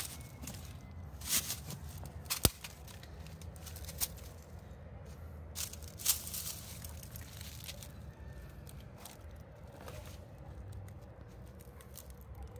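Dry leaves and twigs crackling and snapping under stockinged feet stepping on rocks, in scattered sharp clicks, the loudest about two and a half seconds in, over a low steady rumble.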